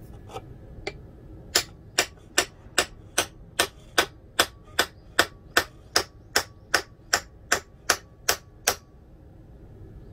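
A 5160 spring-steel knife blade chopping against the edge of a thin yellow strip held in a vise. After two light taps, it makes a steady run of about twenty sharp clicks, roughly two and a half a second, which stops near the end.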